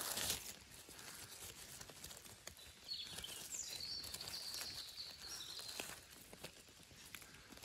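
Footsteps and rustling of a person moving through the forest undergrowth, with a brief rustle at the start. A bird sings faintly for a few seconds from about three seconds in.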